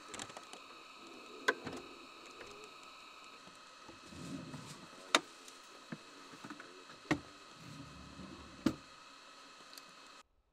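Metal cargo storage drawer being worked by hand: four sharp clicks and knocks from its latch and handle, with two short rumbles of the drawer running on its slides. Faint steady tones run underneath, and the sound cuts off just before the end.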